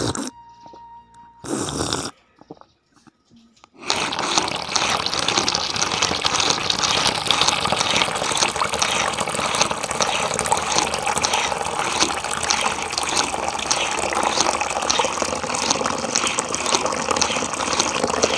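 Water pouring from a miniature hand pump's spout into a small basin: a steady splashing trickle that starts about four seconds in. A couple of brief, louder sounds come before it.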